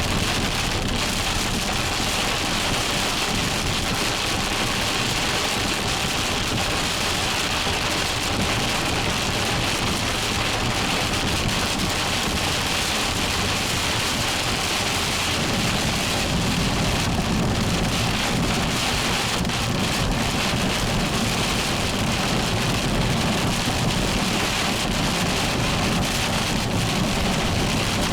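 Heavy thunderstorm rain pouring steadily, a dense even hiss, with a deeper rumble building in about halfway through.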